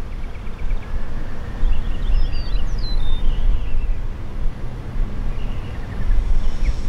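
A low, uneven rumble with small birds chirping over it, a burst of chirps about two to three seconds in and more near the end.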